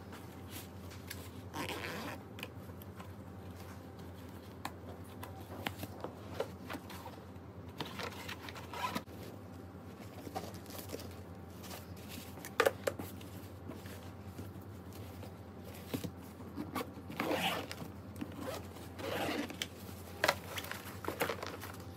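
Zippers and fabric lining rustling as an Echolac 20-inch hard-shell carry-on suitcase's compartments are opened and handled, in short scattered bursts with a sharp click about halfway through.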